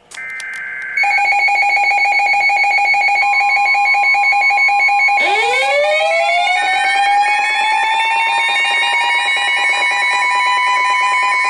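Emergency Alert System alert tones: steady electronic attention tones with a rapid pulsing quality, after a brief buzz in the first second. About five seconds in, a siren-like tone joins, rising in pitch over a couple of seconds and then holding.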